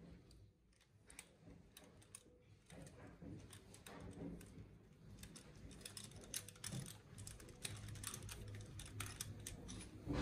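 Faint, quick clicks and clinks of hand tools on metal, a socket wrench with extension working at the engine's cylinder head. The clicking grows denser and a little louder after about three seconds.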